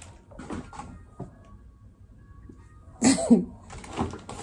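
A person with the flu sneezing once, a sharp burst about three seconds in with a short voiced tail.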